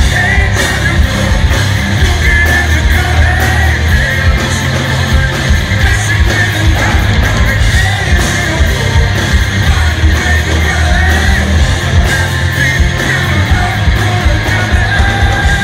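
Hard rock band playing live at full volume, with electric guitars, bass and drums, heard from the crowd.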